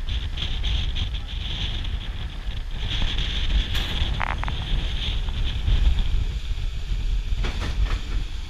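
Steady low rumble and rush of a large riverboat cruising under way, with wind buffeting the microphone.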